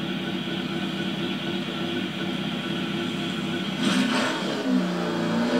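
A vehicle engine running steadily, with a brief whoosh about four seconds in.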